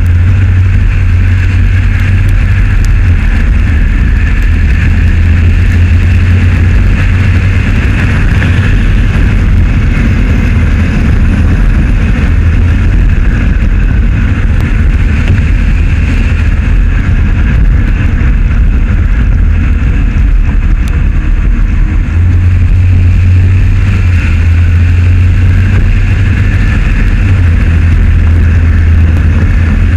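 Steady, loud road and wind noise of a moving vehicle: a low rumble with tyre hiss from a concrete road surface, unchanging throughout.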